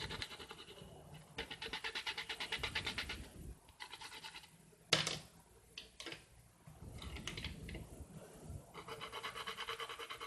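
Pastel pencils rubbing on paper in quick back-and-forth strokes as colours are blended, coming in several runs of about eight strokes a second. A single sharp tap or rustle about five seconds in.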